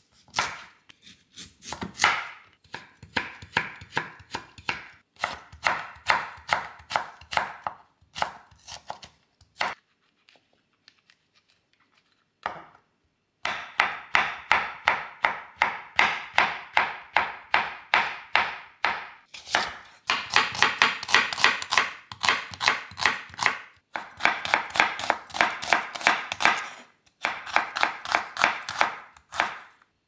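Kitchen knife chopping food on a cutting board in quick, even runs of strokes, about four a second, with a pause of a few seconds about ten seconds in.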